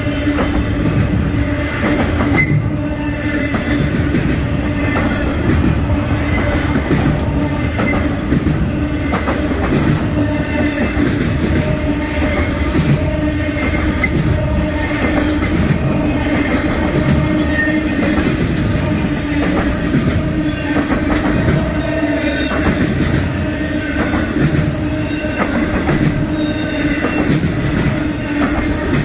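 Intermodal freight train of trailer-carrying flatcars rolling past close by: a steady loud rumble with the clatter of wheels over rail joints and a steady tone running under it.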